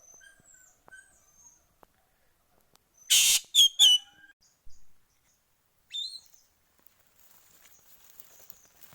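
Birds calling: a loud harsh call about three seconds in, followed at once by two sharp, clear notes, then a short rising call about six seconds in, with faint high chirps around them.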